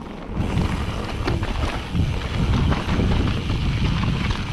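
Wind buffeting the microphone and mountain bike tyres rolling over a rough trail, with scattered small knocks and rattles from the bike. The rush comes in suddenly about half a second in.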